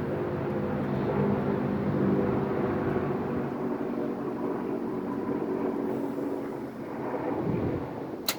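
A motor vehicle's engine running steadily, fading out over the first few seconds, over constant outdoor background noise. A single sharp crack near the end.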